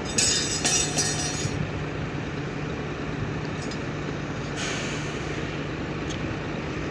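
An engine runs with a steady low hum. Air hisses with some clinking in the first second and a half, and air hisses again about four and a half seconds in.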